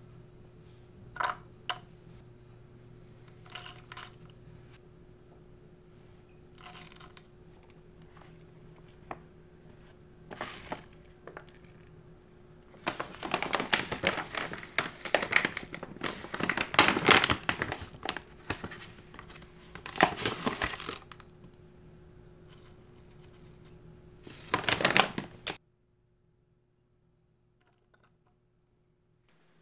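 Plastic pouch of hemp seeds crinkling loudly as it is handled and shaken over a jar, in two long stretches, after a few scattered light clicks and taps; a faint steady hum runs underneath, and everything cuts off suddenly near the end.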